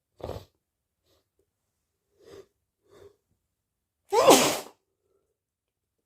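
A person sneezing: a short breathy burst, two short breaths a moment later, then one loud sneeze with a voiced, falling cry about four seconds in.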